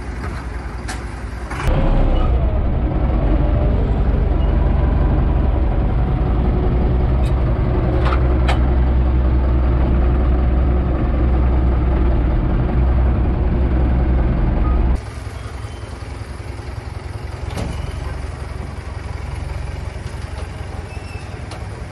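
Universal 650 tractor's diesel engine running steadily. It gets louder and heavier from about two seconds in and drops back abruptly about two-thirds of the way through.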